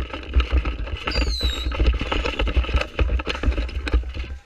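Rustling, knocking and low buffeting from a rifle-mounted action camera being jostled as the player moves with the gun, with wind on the microphone. A brief high falling whistle about a second in.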